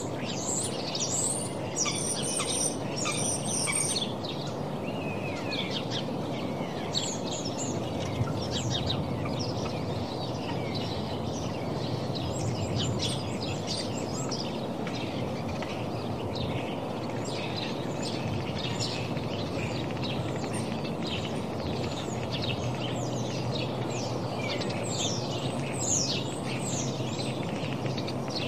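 Many birds chirping in quick, overlapping short calls, over a steady low hum.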